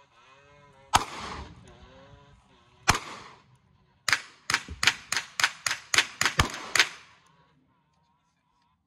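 Gunshots from a firearm: two single shots about two seconds apart, then a fast string of about eleven shots, roughly four a second, that stops about seven seconds in.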